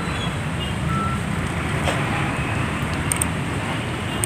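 Dense, slow-moving road traffic in a jam: a steady low rumble of idling and creeping vehicle engines, with scattered brief high chirps and a faint tick.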